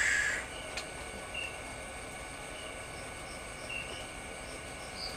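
Faint steady background noise with high, thin insect chirps repeating now and then. A short hiss right at the start is the loudest thing.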